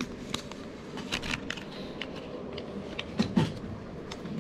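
Scattered light clicks and clinks of tea glasses and spoons over a steady low hum of background noise, with a louder clatter about three seconds in.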